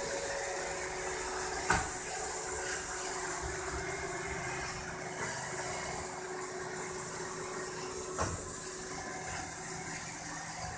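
Roomba robot vacuum running with a steady whir and hiss, with two sharp knocks, one about two seconds in and another about six seconds later.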